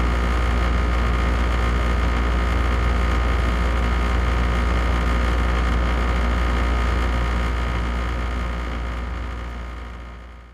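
Air conditioner running on high: a steady rush of airflow over a strong low hum, with a faint high whine. It fades out over the last three seconds or so.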